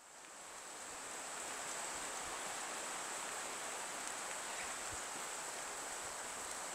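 Steady hiss of falling rain, fading in over the first second or two, with a thin steady high-pitched tone above it.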